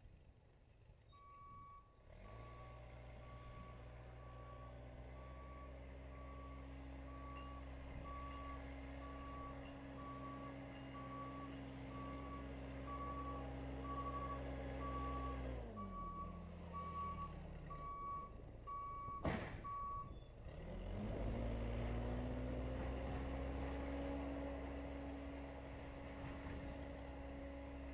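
Case 580C backhoe's diesel engine running steadily while its reverse alarm beeps about once a second as it backs up. Past halfway the engine slows, a sharp click sounds and the beeping stops, then the engine revs back up and holds there.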